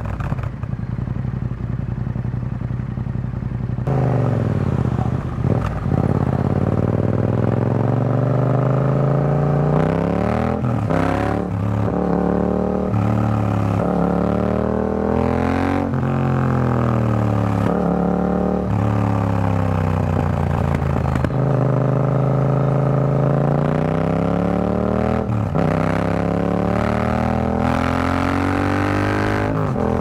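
Yamaha XSR700's 689 cc parallel-twin engine through an Akrapovic carbon full exhaust with the dB killer fitted. It idles evenly for about four seconds, then the bike pulls away and accelerates through the gears, the pitch climbing and dropping back at each shift.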